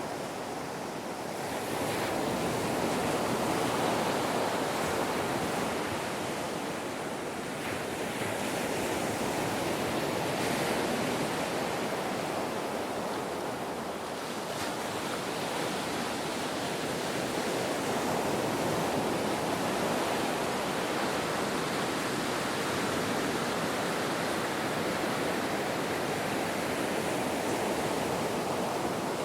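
Ocean surf washing onto a beach, a steady rush with slow swells and ebbs every few seconds as waves break and draw back.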